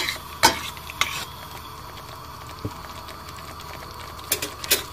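Tomato puree and tomato paste sizzling in a pan as they fry down and the tomato water cooks off. A metal spoon clicks against the pan about half a second and a second in, then twice near the end.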